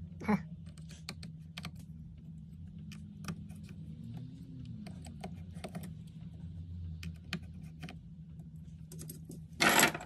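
Scattered light clicks and taps of fingers handling a phone and clear adhesive tape. Near the end comes a short, loud rip of tape being pulled off the roll.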